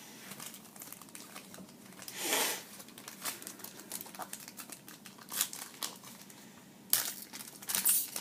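A trading-card pack's wrapper being torn open and crinkled by hand, with a louder tearing rush about two seconds in and more crinkling bursts near the end.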